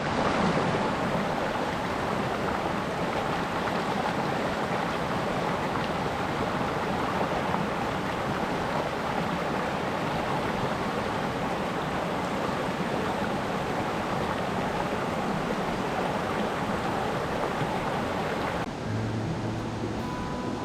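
Mountain stream rushing steadily over rocks; the water sound cuts off abruptly near the end.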